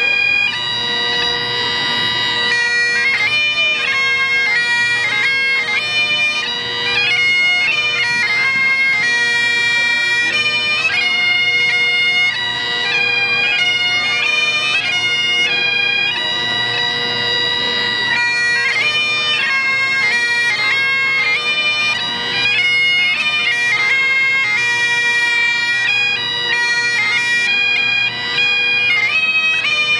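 Two Great Highland bagpipes played together: a steady drone beneath a chanter melody of held notes stepping up and down, playing a Scottish tune.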